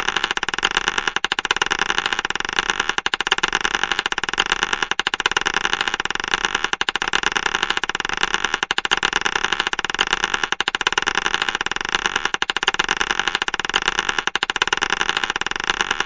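Marbles clattering and rolling against one another: a dense, unbroken stream of rapid clicks that swells and dips about every two seconds.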